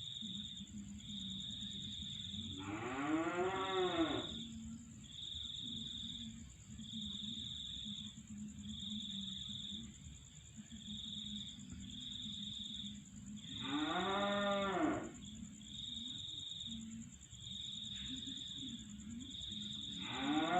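Two long animal calls, each about a second and a half, rising then falling in pitch, about ten seconds apart, with another starting near the end. Underneath, insects chirp in a steady pulse about once a second over a constant high insect drone.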